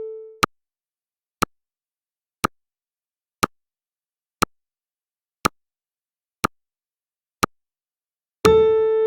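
Countdown timer sound effect: sharp electronic ticks, one each second. A pitched electronic beep tone dies away just after the start, and a new one sounds near the end.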